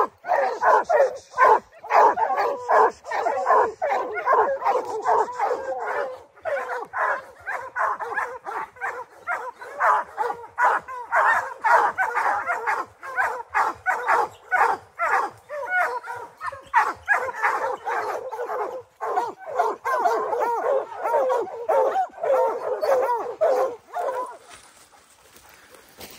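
Several Plott hounds barking treed, their chop barks overlapping in a constant rapid chorus: the sign that the bear is up the tree above them. The barking stops about 24 seconds in.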